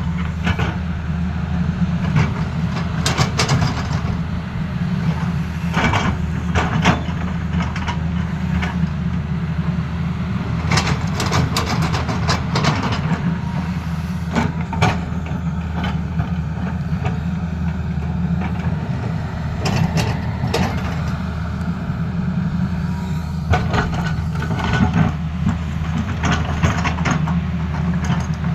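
Tata Hitachi hydraulic excavator's diesel engine running steadily, with frequent short knocks and scrapes from the bucket working the ground.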